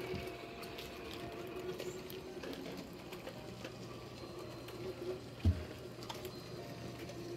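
Small electric motors and plastic mechanisms of animated Christmas village pieces running, such as a motorized ski-slope mountain, with fast clicking over a steady low hum. A single dull thump about five and a half seconds in.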